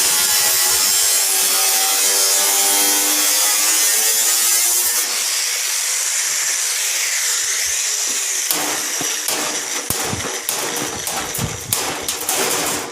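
An electric power tool cutting under load, a steady whine over a loud hiss. About five seconds in the sound changes, and from about eight and a half seconds it becomes irregular rapid scraping and clattering.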